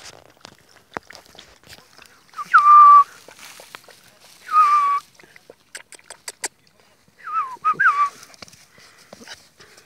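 Puppy whining three times, each a short high cry that drops in pitch and then holds, the last one wavering. Light clicks from the puppies feeding at the bowl fall between the cries.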